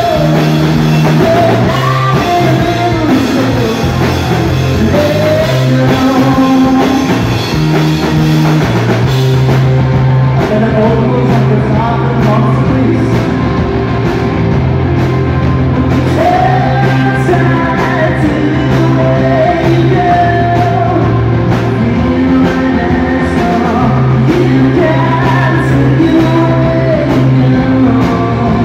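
Live rock band playing loud: a male lead vocal over electric guitar, a bass guitar line and a drum kit.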